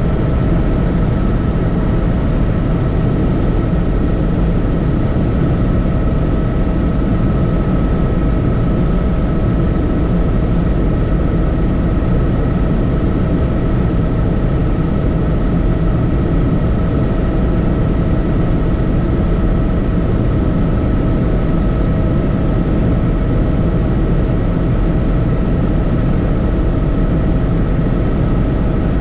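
Helicopter in flight, heard from on board: a loud, steady din of engine and rotor with a steady high whine over it.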